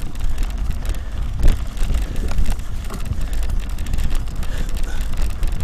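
Wind buffeting the microphone over the rumble and small rattles of a mountain bike rolling along a grassy dirt track.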